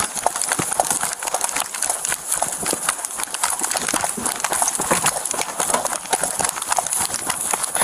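Running footsteps of a person sprinting over grass and ground, a quick uneven patter of thuds, with the chest-worn body camera jostling and rubbing against clothing.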